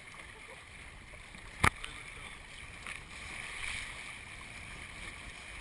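Water washing steadily along the hull of a Hobie sailing kayak under way, with a single sharp knock about a second and a half in.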